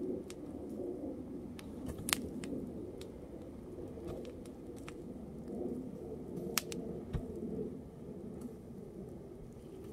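A burning wedding dress and the small fire of dry brush beneath it: a steady low rush of flame with scattered crackles and pops. The two sharpest pops come about two seconds in and again about six and a half seconds in.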